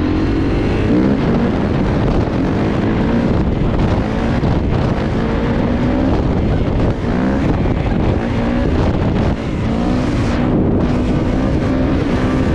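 Kawasaki KX450 single-cylinder four-stroke dirt bike engine accelerating hard, its pitch climbing and dropping back several times as it shifts up through the gears, with wind noise on the microphone.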